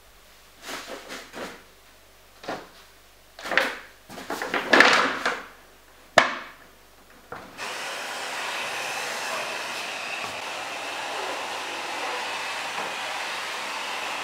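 A few short scrapes and rustles, with a sharp click about six seconds in. A little past halfway, a vacuum cleaner starts and runs steadily with a faint high whine.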